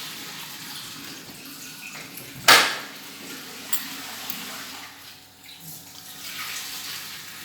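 Tap water running into a pot for boiling instant noodles, with one loud clank of kitchenware about two and a half seconds in and a few small clicks after it.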